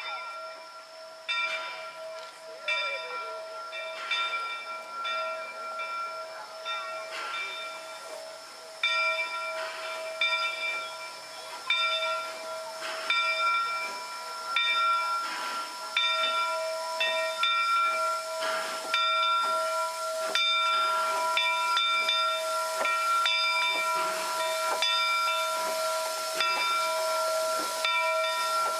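Steam locomotive Polson Logging Co. No. 70 moving slowly past, steam hissing with steady whistling tones and a repeating chuff-like rhythm, getting louder as it comes close.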